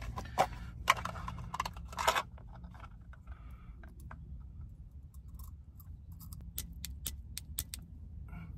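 Clicks and light metallic clinking as a small folding camping gas stove burner is taken out of its orange plastic case and handled, with a quick run of sharp clicks about seven seconds in. A faint low hum runs underneath.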